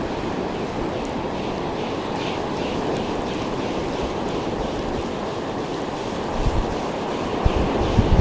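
Ocean surf washing steadily on the beach, with wind buffeting the microphone in low gusts near the end.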